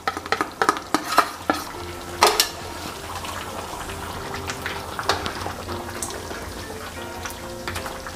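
A spoon stirring chicken curry in a pan, with the gravy sizzling and the spoon knocking and scraping against the pan. The knocks come thickest in the first two and a half seconds, then scattered over a steady sizzle.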